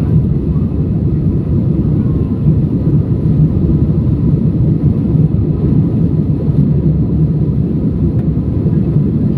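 Steady, loud rumble of a passenger airliner's engines and airflow, heard from inside the cabin.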